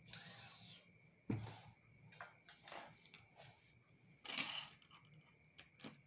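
Metal sewing-machine parts and hand tools being handled and set down on a hard floor: scattered light clicks and knocks, a sharper knock about a second in and a short clatter past the four-second mark.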